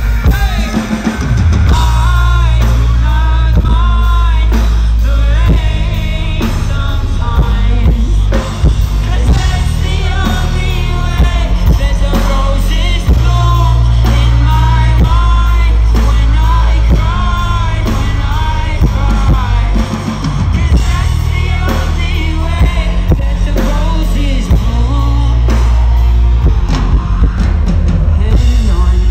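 Loud live rock music from a band over a stage PA: heavy bass and drum kit, with a man singing into a microphone over it.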